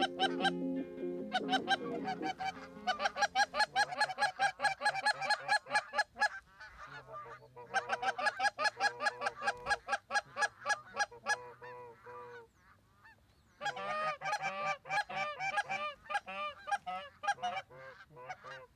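A flock of geese honking in rapid, overlapping calls, with a short lull about twelve seconds in.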